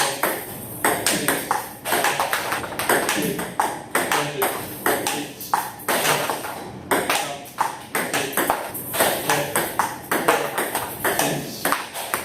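Table tennis balls hit in quick succession during a multi-ball drill: rapid clicks of ball on bat and table, in clusters of several a second.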